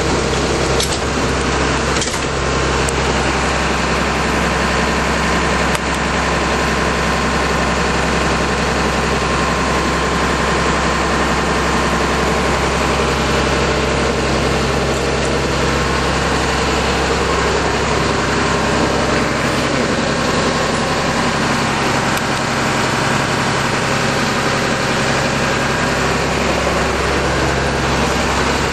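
Cummins 6BT turbo diesel of a Bluebird TC2000 bus idling steadily, heard from inside the cab. It has just been started after sitting unstarted all winter and is idling while the air brake pressure builds.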